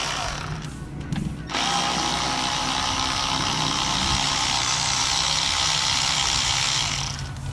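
A cordless electric ratchet runs steadily for about five seconds, backing out a long water-pump bolt. It starts after a brief pause about a second in and stops just before the end.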